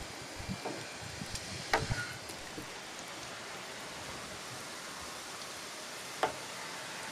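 Steady outdoor background hiss with a few light knocks and clicks, one about two seconds in and another near the end.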